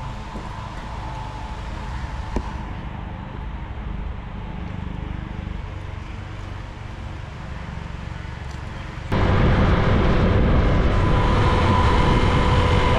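A steady low hum with a single click, then, about nine seconds in, a sudden cut to a motorbike on the move: engine running under heavy wind rush on the microphone, much louder.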